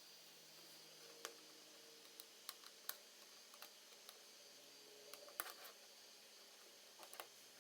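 Near silence broken by faint, scattered small clicks and taps of small repair tools and phone parts being handled on a work surface, with a cluster about five seconds in.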